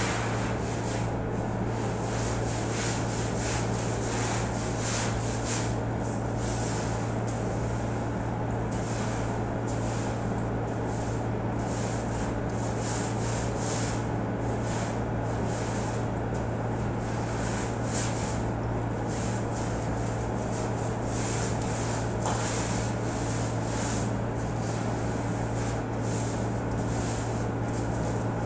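Long-handled floor brush scraping and scrubbing across a tiled floor in repeated strokes, about one a second, over a steady low hum.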